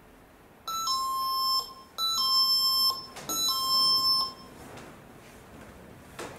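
An electronic two-tone beep sounding three times in a row: each is a short higher note that drops to a held lower note, about a second long.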